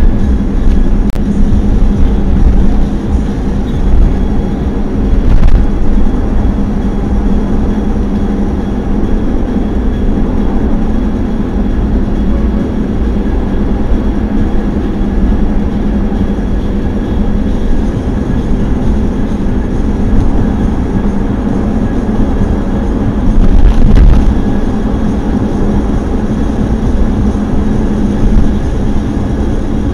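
Steady road and engine noise inside a car cruising on a highway, with a constant low hum. Two brief knocks break through, about five seconds in and again near the end.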